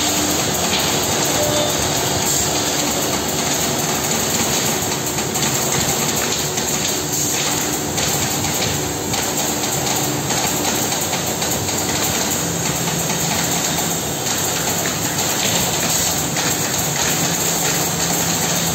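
Holztek HT-R3 three-head CNC nesting router running, its spindles cutting wooden panels, with a steady, loud machining noise; a low steady hum joins about two-thirds of the way through.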